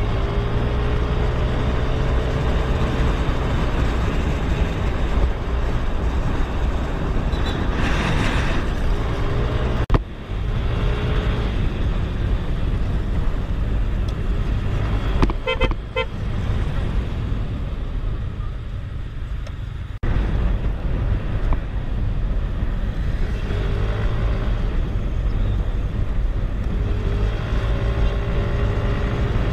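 Motor scooter riding along a road, its small engine running under steady wind and traffic noise, with the engine pitch rising and falling. A short burst of horn toots sounds about halfway through.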